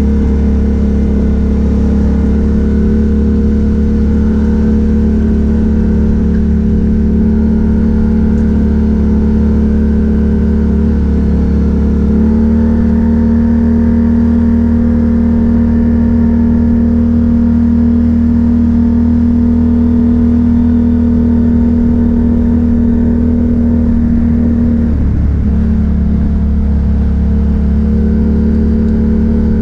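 ATV engine running under steady throttle while riding, its pitch holding level apart from two brief dips, about 11 seconds in and again about 25 seconds in.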